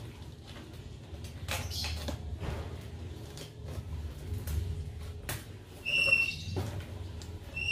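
Cardboard box being opened by hand: a small blade scratching and slitting the packing tape, with rustling and tapping of the cardboard. About six seconds in, a short high-pitched squeak, the loudest sound.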